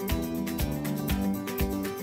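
Background music with a steady beat of about two beats a second.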